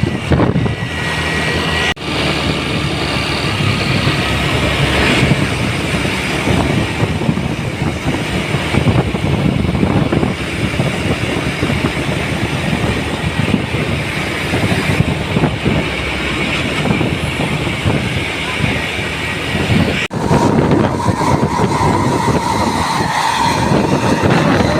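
Continuous rumble of engines and tyres from buses and other heavy vehicles passing close by on a busy road. A steady high tone is held for a few seconds near the end.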